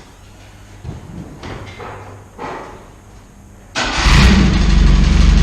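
Fiat 128 Rural's four-cylinder engine catching about four seconds in, then running loudly and steadily through its newly fitted, freshly welded exhaust.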